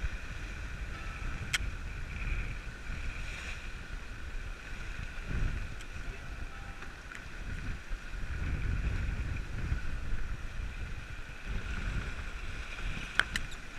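Water rushing and splashing along the hull of a Contessa 32 sailing yacht as it heels through choppy water, with wind buffeting the microphone in surging gusts. A sharp click about a second and a half in and another near the end.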